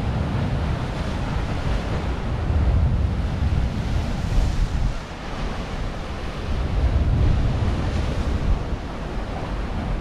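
Baltic Sea waves surging and breaking against a shore of piled stone blocks, swelling louder every few seconds, with wind buffeting the microphone as a low rumble.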